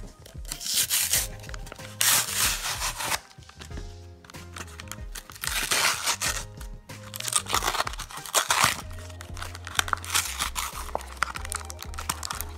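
Background music with a steady repeating bass line and several hiss-like noise sweeps about a second long.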